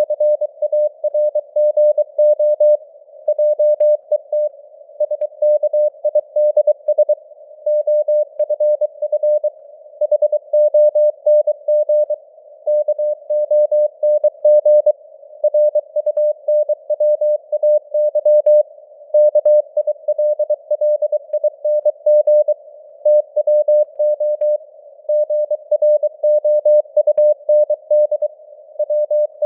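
Morse code (CW) sent at 23 words per minute: a single steady tone keyed on and off in dots and dashes, over a narrow band of simulated radio hiss.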